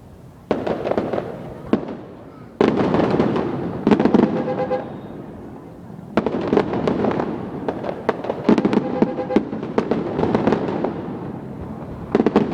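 Fireworks going off in quick succession: about five sudden bursts, each followed by a second or more of dense crackling.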